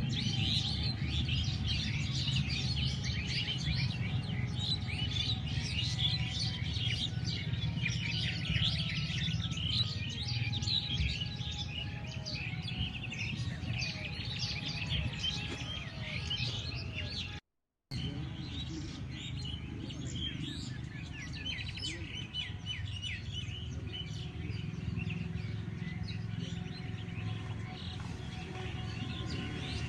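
A dense chorus of many birds chirping and trilling at once, over a steady low drone. The sound cuts out completely for about half a second a little past halfway, then the chorus resumes.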